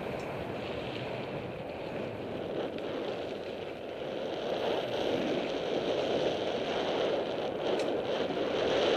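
Wind buffeting a bike-mounted camera's microphone while riding a mountain bike over dirt singletrack, with the tyres rolling on the dirt. The rush grows louder in the second half, with a couple of light knocks near the end.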